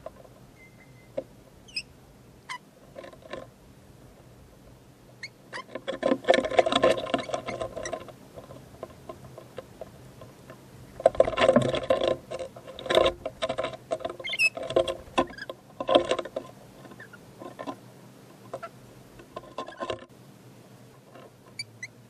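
Rainbow lorikeets biting and chewing at fruit: bursts of rapid clicking and scratching from their beaks, heaviest about six seconds in and again from about eleven to sixteen seconds, with scattered single clicks and a few short high chirps.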